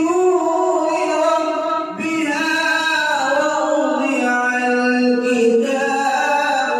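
A man reciting the Quran in melodic tajweed style, holding long, ornamented notes. He breaks briefly for breath about two seconds in, then the phrase slides gradually lower in pitch.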